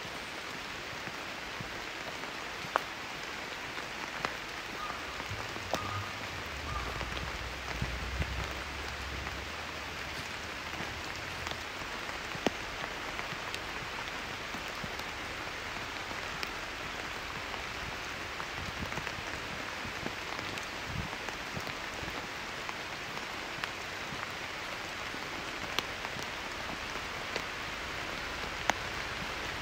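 Steady rain falling through a leafy forest, an even hiss of drops on leaves and ground, with single sharp taps now and then.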